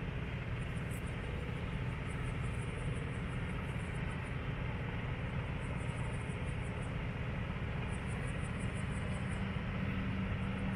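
Heavy road-train truck's diesel engine running steadily with a low, even rumble.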